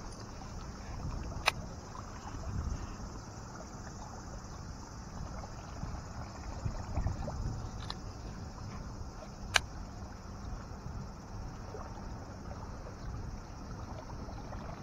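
Wind on the microphone and small waves on the water at the bank, a steady low rumble. Three sharp clicks stand out: one at the start, one about a second and a half in, and one about ten seconds in.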